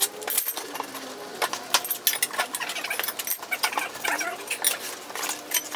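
Car tyre being forced onto a wheel rim by hand: irregular clicks and knocks from the rubber and rim, with a few short squeaks of rubber.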